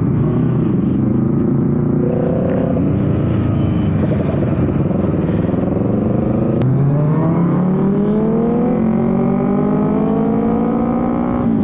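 Motorcycle engine accelerating hard through the gears. Its note climbs steadily in each gear and drops back at each upshift, with one shift about halfway through and another at the end.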